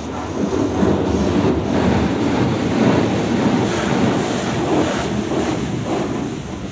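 Automatic car wash equipment working over the car, heard from inside the cabin: a loud, steady rumble of water and machinery on the roof that swells in at the start and eases off near the end.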